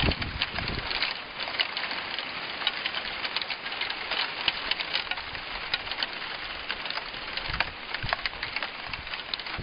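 Graupel (snow pellets) falling and striking surfaces: a dense, even hiss of countless tiny ticks. Wind rumbles on the microphone briefly at the start and again at the very end.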